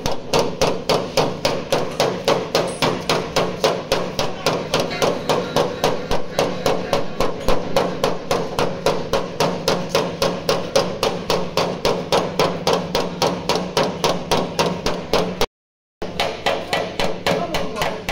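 Panel-beating hammer tapping the sheet-metal bonnet of a Honda N-WGN to work out a dent, in rapid, even taps about five a second. The tapping breaks off for a moment near the end.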